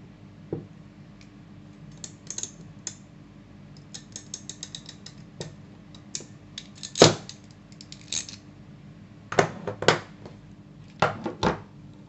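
Hand crimping pliers closing on a ring terminal on a wire: a rapid run of clicks, then one loud snap about seven seconds in, followed by further clicks and clacks of the tool being handled near the end.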